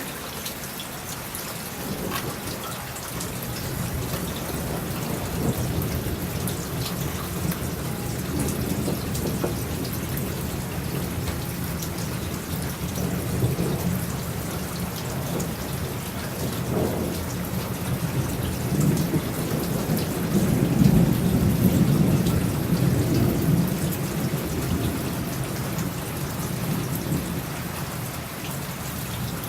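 Steady rain falling, with thunder rumbling in several rolling swells that are loudest about twenty seconds in.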